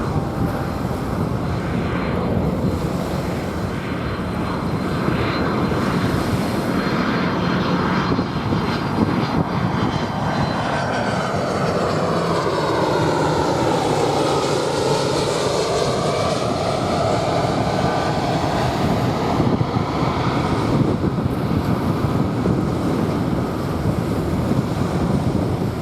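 Jet airliner passing low over the beach near Haneda Airport, its engine noise growing and sweeping down and back up in pitch as it goes over, about midway through. Waves washing on the sand underneath.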